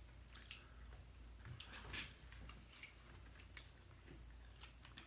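Faint wet chewing and mouth sounds of someone eating a cheeseburger: soft scattered clicks, a slightly louder one about two seconds in, over a low steady hum.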